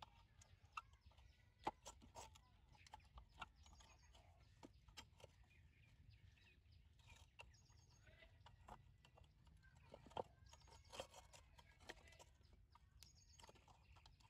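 Near silence with scattered faint clicks and taps as the glass globe of a Chalwyn hurricane lantern is wiped and fitted into its painted metal frame.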